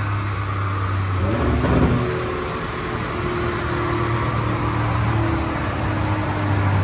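Porsche 992 Carrera 4S twin-turbo 3.0-litre flat-six running steadily through an Akrapovic titanium slip-on exhaust while the car drives the dyno rollers. There is a short rise and fall in revs about one and a half seconds in.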